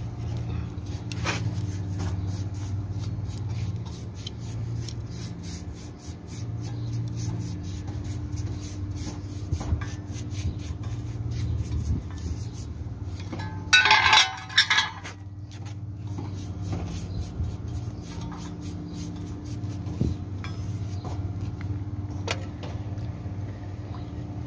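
A paintbrush scrubbing paint onto welded steel, the bristles rubbing and scraping against the metal in quick strokes, with one brief louder rasp about fourteen seconds in. A steady low machine hum runs underneath.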